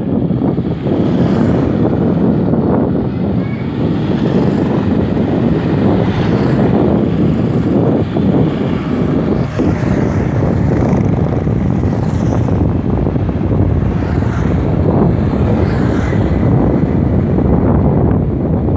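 Steady wind rumble on the microphone of a phone carried along a street on the move, with the murmur of moving traffic underneath.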